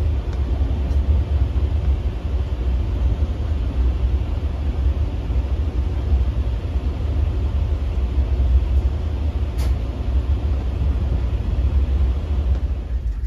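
Steady low rumble of a Rajdhani Express passenger coach running at about 79 km/h, heard from inside the coach, with one faint click about ten seconds in.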